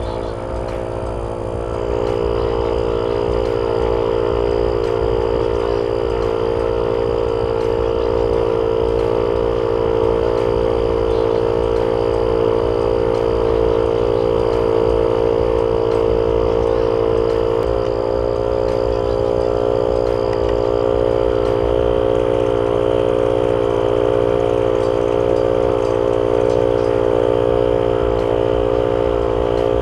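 12V portable piston air compressor running steadily with a continuous mechanical drone, working against the load of inflating a nearly flat spare tire. It gets louder about two seconds in.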